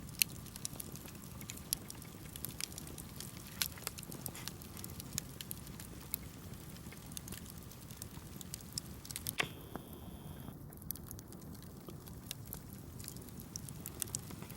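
Small campfire crackling, with sharp pops and snaps at irregular intervals over a low steady rush.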